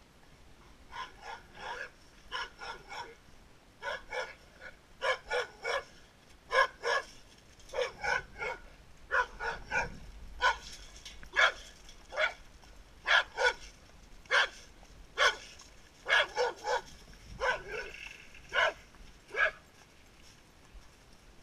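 Dog barking repeatedly, in short runs of two or three barks, stopping shortly before the end.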